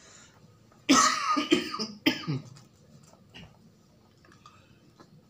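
A man coughing and clearing his throat: a sudden harsh cough about a second in and another about a second later.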